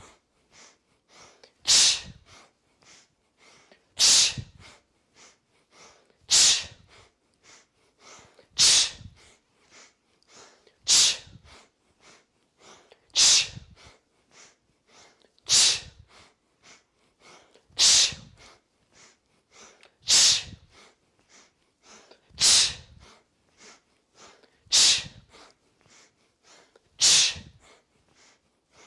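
A person doing a rhythmic yogic breathing exercise: a few short, quiet sniffed inhales, then one sharp, forceful exhale, repeating steadily about every two and a quarter seconds.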